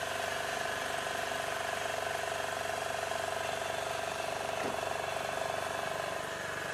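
Small petrol outboard motor running steadily at cruising speed, a constant drone with a strong even hum, pushing the yacht against the river current.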